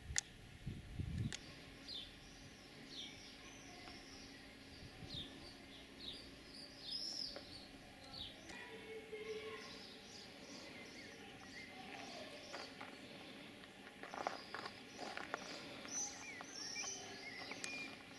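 Small birds chirping and calling repeatedly, faint. A few footsteps on gravel near the end.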